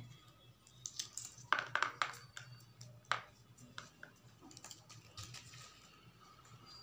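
Pods being split open by hand and the shelled peas dropping onto a plastic plate: an irregular string of small, sharp clicks and snaps.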